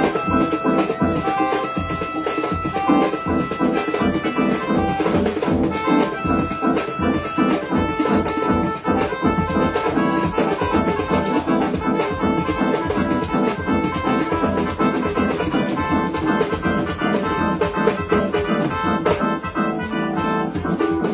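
Dance music with a steady beat and a melody of held notes.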